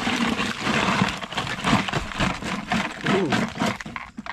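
Fish and crabs being shaken out of a plastic bottle into a plastic basin: a dense clatter of knocks and crinkling plastic that dies down near the end.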